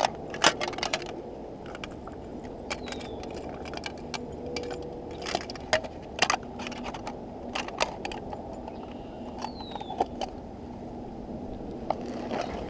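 Clicks, rattles and light scrapes from handling an open tackle case of chatterbait lures, the metal-bladed lures and hooks jangling and knocking together as they are picked through.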